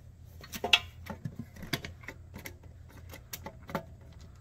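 A series of sharp clicks and knocks, about half a dozen, the loudest near the start, from handling a small steel pistol safe (V-Line 279-S): the box turned over and set down, then its mechanical Simplex push buttons pressed.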